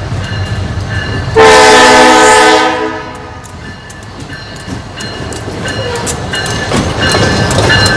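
Morristown & Erie diesel locomotive No. 20 sounding one horn blast of about a second and a half, a little over a second in. Then the train's running rumble and wheels clicking over rail joints, getting louder near the end as the locomotive draws close.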